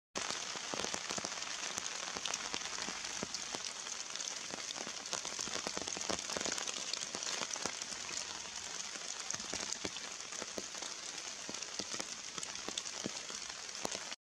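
Steady rain pattering in woodland: an even, dense crackle of many small drops.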